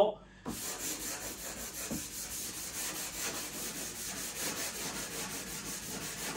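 Hand sanding with 220-grit sandpaper on a sanding block, rubbed back and forth in steady strokes along the edge of a panel to smooth freshly trimmed edge banding. The rubbing starts about half a second in.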